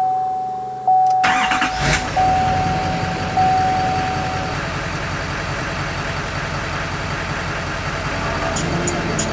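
A dashboard warning chime dings about once a second while the LML Duramax's 6.6-litre turbodiesel V8 cranks and starts about a second in, then settles into a steady diesel idle; the chime stops a few seconds after the start.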